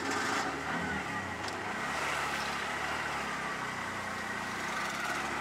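Auto-rickshaw running steadily through street traffic. Its engine drone is blended with the noise of other vehicles around it.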